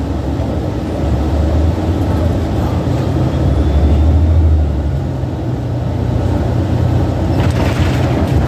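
Cabin sound of a 2014 New Flyer XDE60 diesel-electric hybrid articulated bus under way: a steady low engine drone over road rumble. The hum shifts to a higher pitch about five seconds in.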